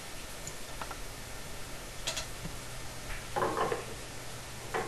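A few light clicks and knocks over a steady hiss, with a short cluster of metallic clinks about three and a half seconds in, as of plumbing fittings being handled.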